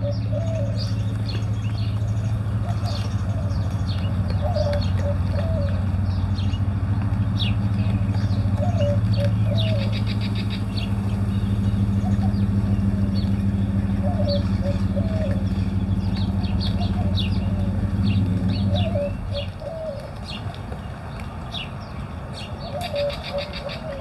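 Birds calling around a feeder, with a repeated low cooing call and many high chirps, over a steady low mechanical hum that stops about nineteen seconds in.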